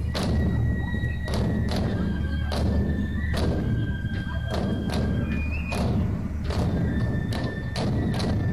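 Background music: a held melody line over steady drum thumps, about two to three beats a second.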